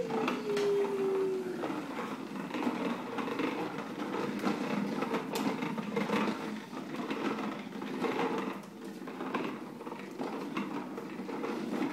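Plastic tricycle wheels rolling over a hardwood floor as the trike is pushed along: a continuous rolling rumble with small irregular clicks. A held tone slides down and fades away in the first two seconds.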